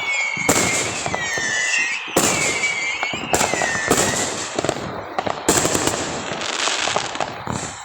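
Consumer fireworks going off repeatedly, several sharp bangs with crackling between them. In the first half, whistling tones slide down in pitch.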